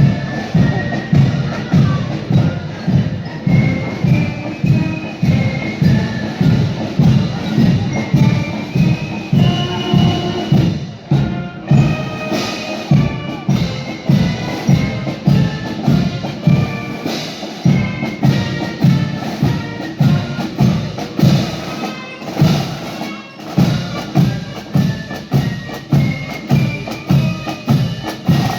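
A marching band playing a march as it passes in a parade, with drums keeping a steady beat under a high melody.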